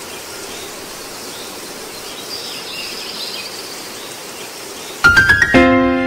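Steady outdoor ambient hiss with faint high chirps. About five seconds in, a quick rising run of chime-like notes starts the background music, which then rings on in held tones.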